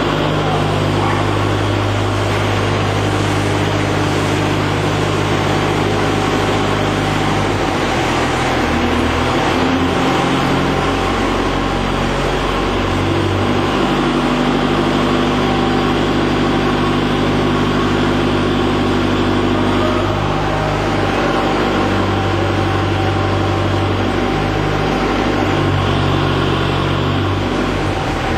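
Diesel engine and hydraulics of a bucket-loading machine running steadily under load as the arm raises a full bucket, the engine note stepping up and down in pitch several times.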